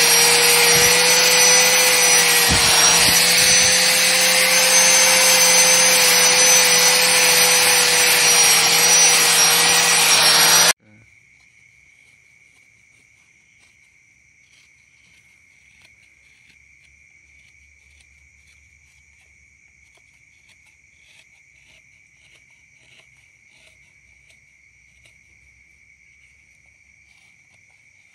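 Angle grinder running steadily with a whine, its disc grinding the steel blade of a golok machete; it cuts off abruptly about ten seconds in. Then quiet, with insects chirping in a steady high drone and a few faint ticks.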